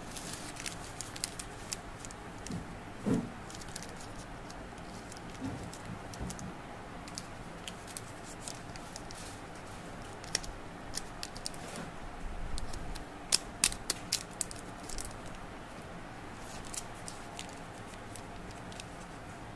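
Plastic candy wrappers crinkling in scattered small clicks and crackles as fingers pick up and pinch wrapped Pulse candies, with a quick cluster of sharper crackles near the end, over a faint steady hiss. A brief low tone sounds about three seconds in.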